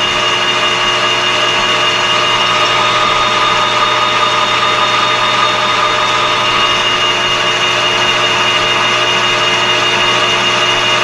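Metal lathe running steadily, with a constant high whine over an even mechanical hum.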